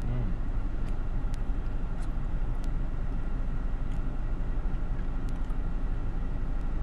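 Steady low rumble of a car with its engine running, heard from inside the cabin, with a few faint clicks.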